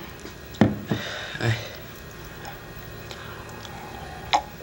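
Glasses of juice being handled and drunk from: a few short knocks and sips, with one more short sound near the end, over a quiet room background.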